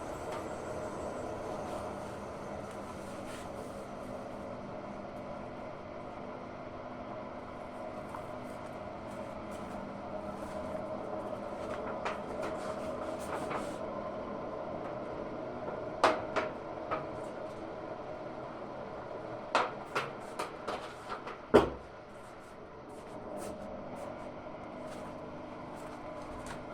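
Hotpoint-Ariston Aqualtis AQ8L 09 U washing machine running a cycle, its brushless inverter motor humming with a steady whine as the drum turns. A few sharp clunks come about two-thirds of the way through, the loudest just before a brief lull, and then the running sound picks up again.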